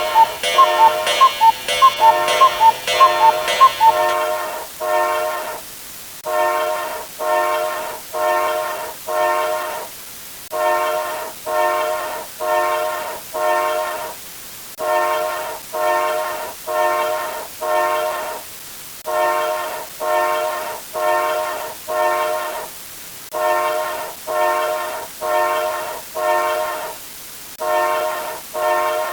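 A fast, even alarm-clock-like beeping for the first few seconds. It gives way to a train horn sound effect sounding short blasts, about five in a row, then a pause, repeating.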